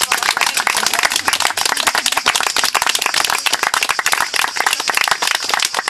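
A small group of people clapping their hands together in steady, dense applause.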